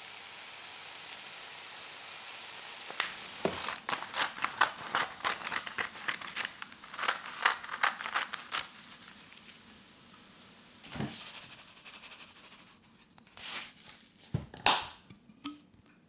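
Kitchen cooking sounds: a steady hiss, then a quick run of crackles and crinkles. A few knocks and a thump come near the end.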